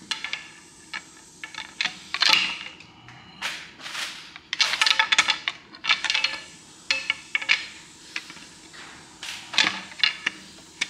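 Steel pry bar clanking and scraping against metal inside an LS2 V8 engine block, prying at chunks of broken connecting rod jammed through the block into the lifter bores. Irregular sharp metallic clicks and clanks come in bursts, busiest from about four to six seconds in.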